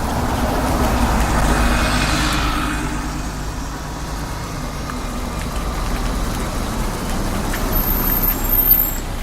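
Paris Métro train running with a deep steady rumble. A rush of noise swells and fades in the first few seconds, and a thin high squeal comes in near the end.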